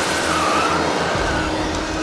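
Vacuum cleaner running: a loud, steady whirr with a higher tone that wavers up and down about once a second.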